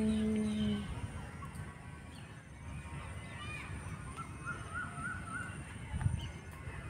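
Birds calling faintly, with a quick run of short rising-and-falling notes about four to five seconds in. A steady held hum dies away just under a second in.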